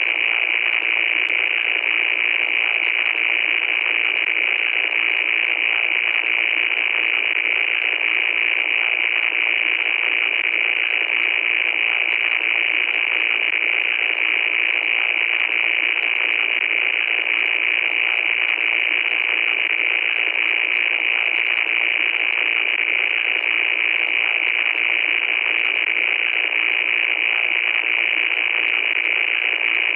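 Loud, steady static hiss, thin with no deep low end, with faint crackles scattered through it.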